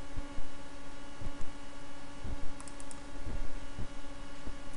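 Irregular soft taps and clicks of a computer keyboard and mouse, with a quick run of four sharp clicks about halfway through, over a steady electrical hum.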